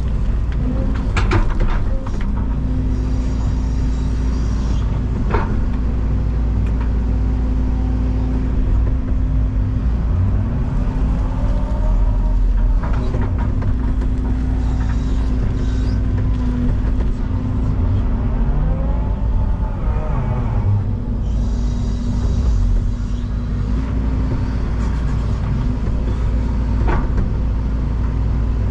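Excavator's diesel engine running steadily under working load, with whines rising and falling in pitch twice as the hydraulics move the arm and bucket, and a few sharp clanks.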